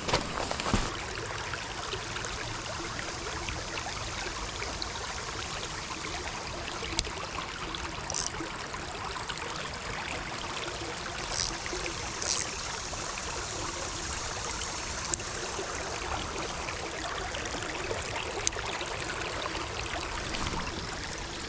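Shallow rocky creek water running steadily, a constant rushing trickle, with a few brief sharp sounds near the middle.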